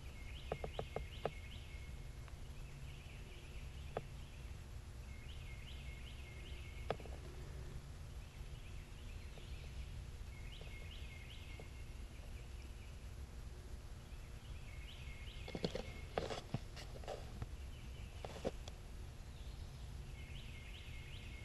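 A small bird repeating a short, high phrase of a few quick notes about every five seconds, over a faint low rumble. A few sharp clicks and taps break in, with the loudest cluster about three-quarters of the way through.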